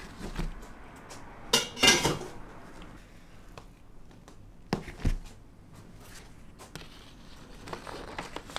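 Cookware being handled on a kitchen counter: a clattering rattle about two seconds in, two sharp knocks a little past the middle, and softer handling near the end as a clear plastic cake ring is set around the cake.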